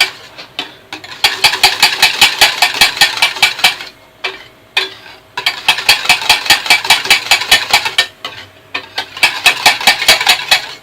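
A utensil rapidly stirring hot, thick lemon pastry cream in a pot, clicking against the pot several times a second in three runs broken by two short pauses, as a spoonful of butter is mixed into it.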